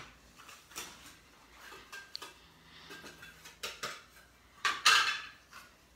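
Small clicks and scrapes of a disassembled Kindle e-reader being handled and pried apart on a plastic cutting board, with a louder scraping rustle a little before five seconds in.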